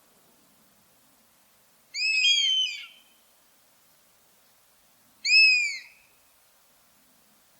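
Common buzzard giving its mewing call twice, about three seconds apart: each a short, arched, downward-falling cry. The first has a second overlapping note.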